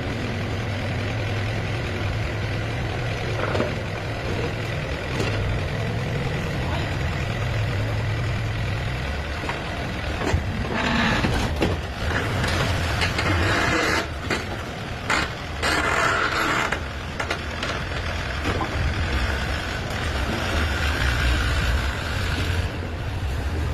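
Yanmar 35 mini excavator's diesel engine running steadily, with several louder noisy stretches between about ten and seventeen seconds in as the machine works.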